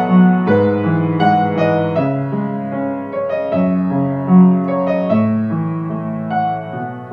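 Slow piano music: single notes and chords struck one after another and left to ring.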